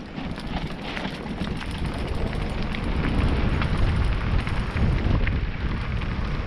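Mountain bike rolling downhill over a rough, stony dirt track: tyres crunching on loose stones with many sharp clicks and rattles, and wind rumbling on the microphone. It grows louder over the first few seconds.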